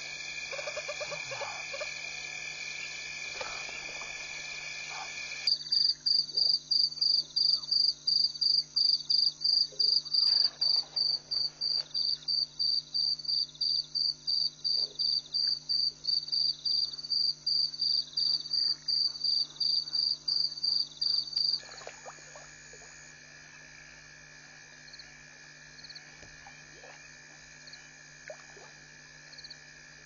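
Night chorus of frogs and insects: steady high-pitched trilling, broken about five seconds in by a loud, high call pulsing about three times a second for some sixteen seconds. The steady trilling then returns, quieter.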